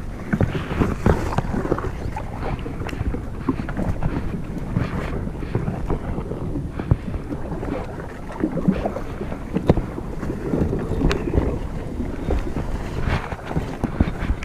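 Wind buffeting the microphone over a kayak being paddled on the water, with irregular splashes and sharp knocks from the paddle.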